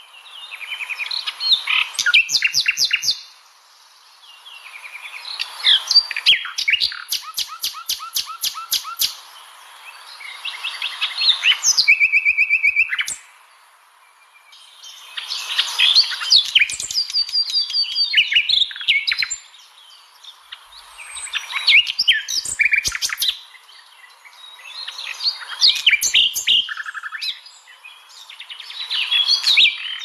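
Nightingale singing: a run of varied phrases, each a few seconds long, made of rapid repeated notes, trills and held whistles, with short pauses between phrases.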